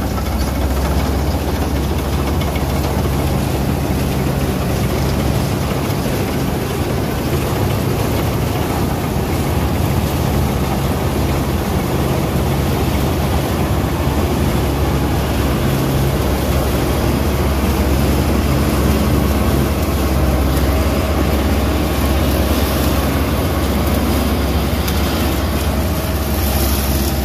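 Malkit 997 combine harvester running under load as it cuts and threshes a crop. Its diesel engine and belt- and chain-driven header and threshing gear make a loud, steady mechanical drone with a deep hum.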